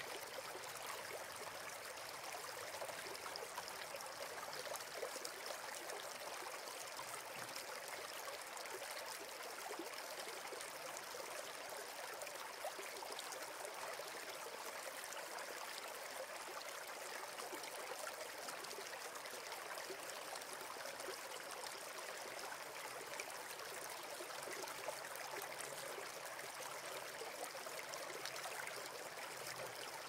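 River water running and trickling, a steady even rush.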